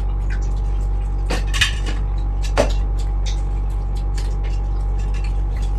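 Scattered clinks and knocks of plates and utensils while eating, with sharper knocks about one and a half and two and a half seconds in, over a steady low hum.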